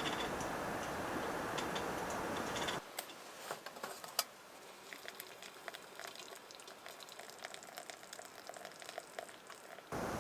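Food sizzling and crackling as it fries. A steady denser sizzle gives way, after an abrupt cut about three seconds in, to a quieter stretch of scattered pops and crackles, then cuts back to the louder sizzle right at the end.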